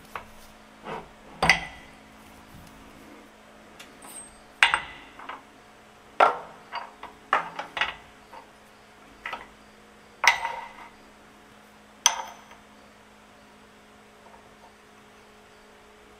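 Steel press blocks, pusher adapters and a bearing being set down and shuffled on a steel shop-press bed: about a dozen irregular sharp metal clinks and knocks with brief ringing, stopping about twelve seconds in.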